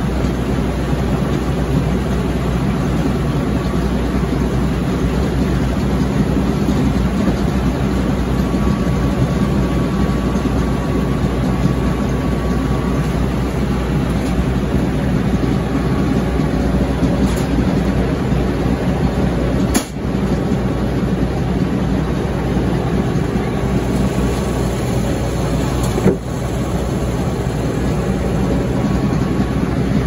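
Frick sawmill running under Caterpillar engine power: a steady, loud engine drone with the big circular saw and carriage working. Two sharp clicks in the second half.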